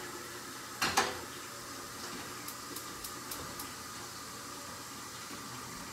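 Two quick knocks of pots or kitchenware at a stove about a second in, then a steady faint hiss with a short run of faint ticks, about four a second, near the middle.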